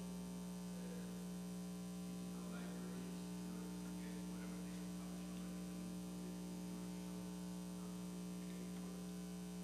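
Steady electrical mains hum on the sound system: a low, even hum with several fainter higher tones above it, and a faint far-off voice beneath it now and then.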